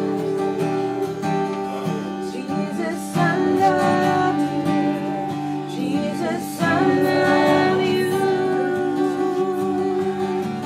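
Slow worship music: acoustic guitar strummed under held chords, with a voice singing wordlessly at moments.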